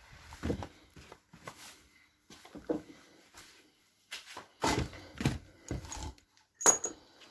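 Irregular knocks and clunks of tools and parts being handled during engine work, about seven separate hits with short pauses between them, the sharpest near the end.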